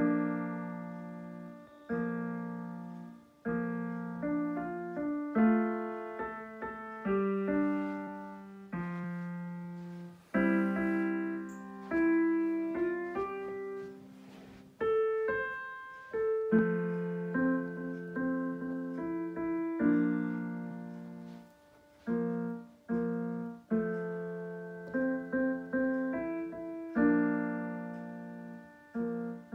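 Roland digital piano played with both hands: chords in the low register with a melody above them, each struck every second or two and left to fade.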